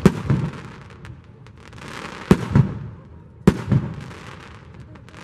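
Aerial firework shells bursting: three sharp booms, at the start, a little after two seconds and about three and a half seconds in, each followed by a rumbling echo, with crackling between them.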